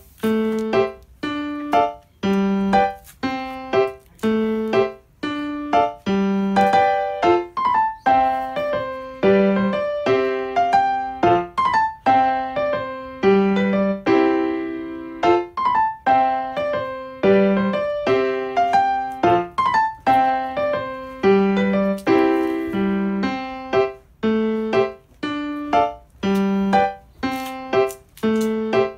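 Background piano music: a melody of struck notes, each fading after it is played, over a repeating low note pattern.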